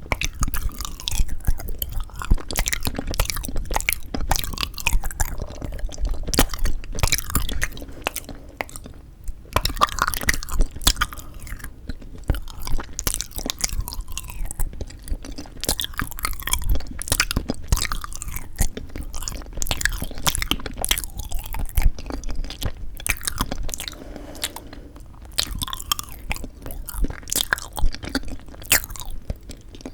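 Close-miked chewing and biting of frozen sweet red bean jelly (yanggaeng), a continuous run of short, sharp, wet mouth clicks.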